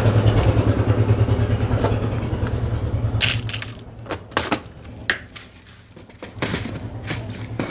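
A motor vehicle engine running close by with a steady, fluttering rumble, which fades out about three and a half seconds in. After it come several sharp knocks and clicks.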